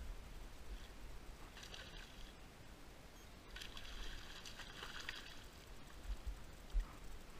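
A hooked salmon splashing and thrashing at the water's surface, in a short burst about two seconds in and a longer one from about three and a half to five seconds. A low rumble runs underneath, and a single thump comes near the end.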